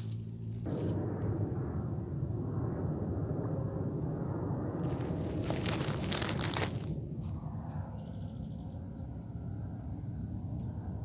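Steady high-pitched insect chorus of crickets or cicadas. From about a second in, a rushing noise close to the microphone comes over it and eases off later, with a few sharp clicks around the middle.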